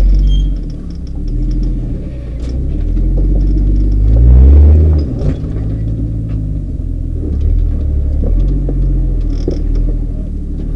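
Rock-crawling buggy's engine working under load, its revs rising and falling with the loudest push about four seconds in, and a few sharp knocks.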